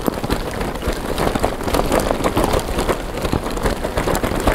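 Loaded bicycle jolting over a rough cobblestone road: a continuous dense rattle and clatter of tyres, frame and bags on the stones, with no let-up.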